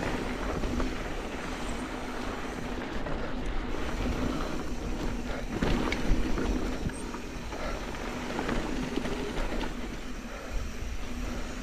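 Mountain bike rolling over a rough dirt and rock trail: tyres on the ground and the chain and frame rattling, with scattered knocks over bumps and a steady low rumble of wind on the microphone.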